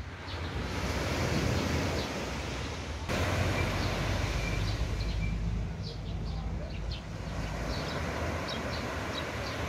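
Seaside ambience: waves washing on the shore and wind rumbling on the microphone, with faint high chirps scattered through. The sound breaks off and resumes abruptly about three seconds in.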